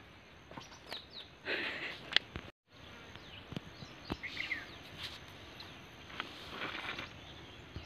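Faint outdoor field ambience: a few short bird chirps and insect buzz over a soft hiss, with scattered small clicks, broken by a moment of complete silence about two and a half seconds in.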